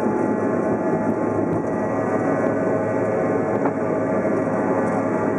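Steady cabin noise of a Canadair CRJ-200 regional jet on the ground, heard from a window seat: the even rush and hum of its two rear-mounted General Electric CF34 turbofans, with several steady whining tones.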